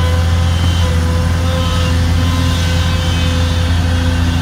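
Sunward SWE210 long-reach excavator's diesel engine running steadily under digging load, a deep even hum with a faint whine above it as the boom lifts a bucket of mud.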